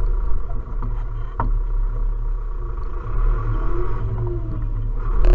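Zetor Proxima tractor's diesel engine running steadily under way, heard from inside the cab as a low drone, with one sharp knock about a second and a half in.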